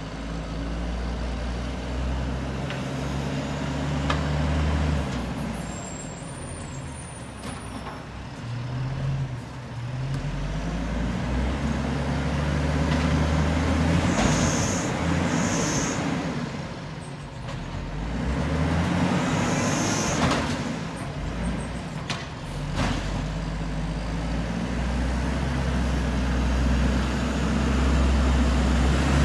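Cummins L10G natural-gas engine of a WhiteGMC rail-arm Amrep garbage truck, revving up and dropping back again and again. Short air hisses come twice in quick succession about halfway through and once more a few seconds later.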